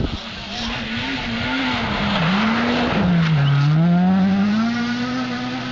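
Rally car engine at high revs sliding past on a snow stage. The pitch wavers, drops deeply about halfway through as the throttle comes off, then climbs steadily as the car accelerates away, over a rushing hiss of tyres throwing snow.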